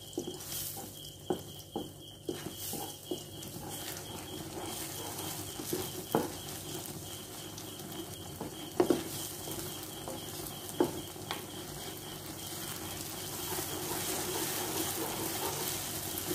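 Beaten egg mixture frying in plenty of hot oil in a ceramic-coated pan, sizzling while a wooden spatula stirs and scrapes it, with a few sharp knocks of the spatula against the pan. The sizzle grows louder near the end.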